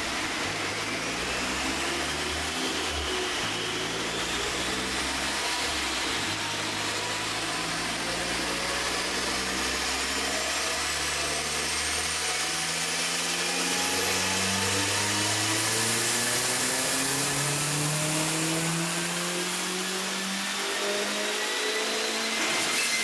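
Audi TT mk1 1.8-litre turbocharged four-cylinder engine pulling a power run on a rolling-road dyno under load. The revs climb steadily in one long pull lasting about twenty seconds, with a high whine rising alongside.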